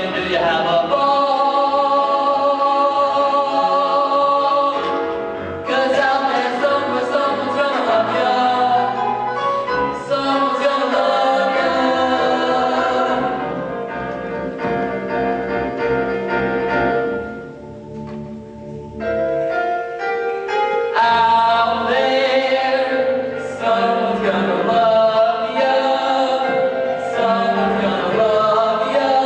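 A chorus of children's voices singing a musical-theatre number, dipping quieter for a moment about eighteen seconds in.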